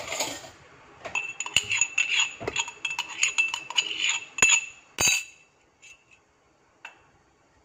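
Utensils clinking and scraping: rapid, irregular taps of a spoon against a ringing vessel as coarsely crushed spices are emptied into the pan of water. The clinking stops a little after five seconds, leaving a few faint ticks.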